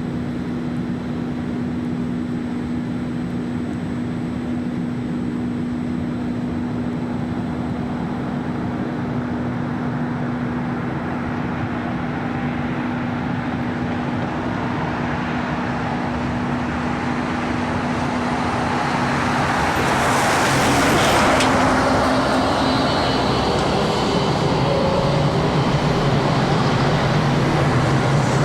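Tram moving through the depot: a steady hum, then a rolling rumble that grows louder and peaks about twenty seconds in as the tram passes close, with a few faint high squeals after.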